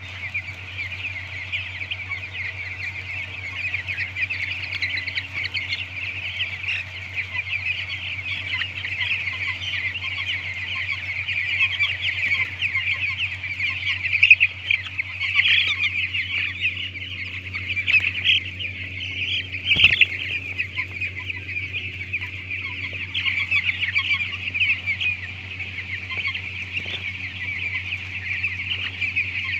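A flock of nine-day-old broiler chicks peeping continuously, a dense chorus of overlapping high cheeps, over a steady low hum.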